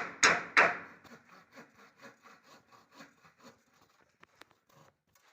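Handsaw cutting timber: three hard strokes at the start, then lighter strokes about two a second that fade away, with a few faint knocks near the end.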